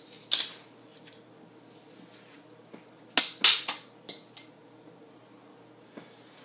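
Twist-off metal cap of a glass bottle of King Cobra malt liquor being cracked open: a sharp snap about half a second in, then a quick cluster of clicks and clinks of cap and glass about three seconds later.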